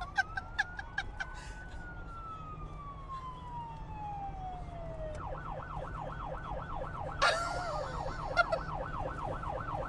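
Police car electronic siren: one slow wail that rises and falls, then switching about five seconds in to a fast yelp.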